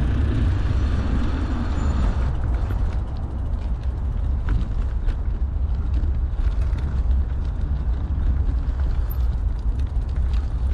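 Wind buffeting the microphone of a mountain bike camera, with tyre noise rolling over pavement. The hiss thins about two seconds in, and after that small clicks and rattles from the bike come through.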